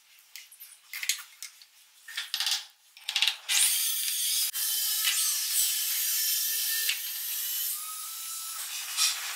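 Short scrapes and taps of a hand tool working wooden stair trim. About three and a half seconds in, a steady, hissy rasping noise begins and runs until near the end.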